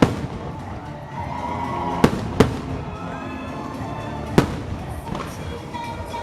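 Fireworks shells bursting with sharp bangs: one about two seconds in, another just after, and a third a little past four seconds, over the fireworks show's soundtrack music.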